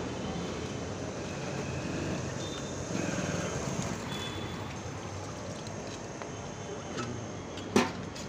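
Street ambience: a steady hum of road traffic, with a sharp knock near the end.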